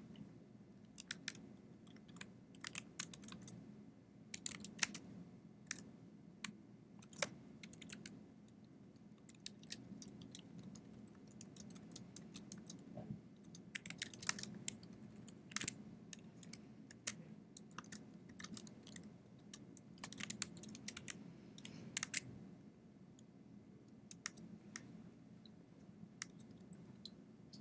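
Computer keyboard typing: irregular key clicks in short clusters, over a faint steady low hum.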